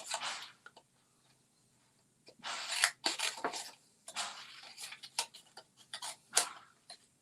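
Paper and cardstock being handled at a crafting table: several bursts of rustling, with a few sharp clicks near the end.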